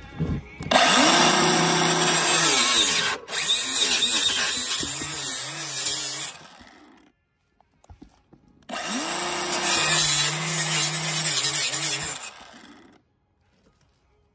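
Compact cordless circular saw cutting into a metal railing: the motor spins up with a whine that drops and wavers as the blade bites, over a harsh hiss of blade on metal. It runs about six seconds, stops, then cuts again for about four seconds.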